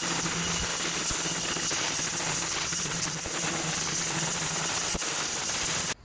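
Battery-powered string trimmer running steadily at speed, with an even motor hum under the whirr of the line; it cuts off suddenly near the end.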